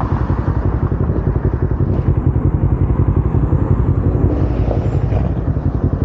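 Kawasaki Ninja 250R's parallel-twin engine idling with a steady, rapid pulse.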